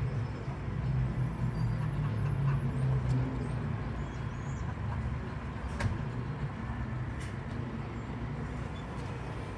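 City bus engine running with road rumble, heard from inside the bus; the engine hum is louder for the first few seconds, then eases. A sharp click sounds about six seconds in.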